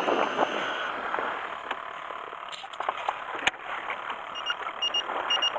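Steady hiss of wind and sea noise aboard a small fishing boat, with one sharp click midway. Near the end comes a quick run of short electronic double beeps, about two pairs a second.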